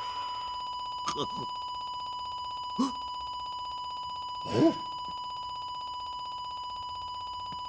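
A steady, high-pitched electronic buzzing tone held without a break, with three short vocal grunts about one, three and four and a half seconds in.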